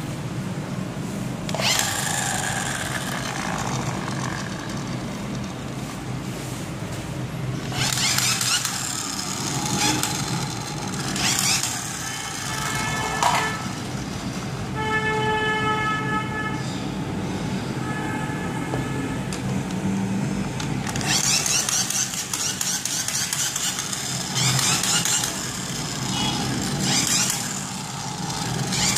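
Battery-powered light-up toy bubble gun sounding: a run of electronic beeping tones from about 12 to 19 seconds, and repeated noisy bursts of whirring over a steady low hum.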